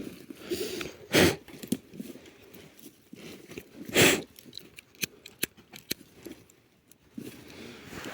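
Rustling and crunching handling noise with scattered light clicks, and two louder rustles about a second in and about four seconds in.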